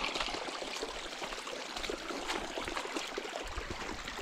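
Shallow creek water trickling steadily through a narrow channel cut in sandstone.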